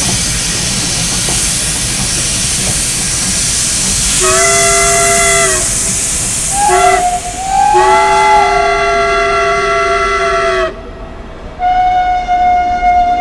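Steam locomotive letting off a steady hiss of steam, then blowing its chime whistle: a blast about four seconds in, a brief toot, and a longer blast of about three seconds. After a short lull, another steady whistle tone starts near the end.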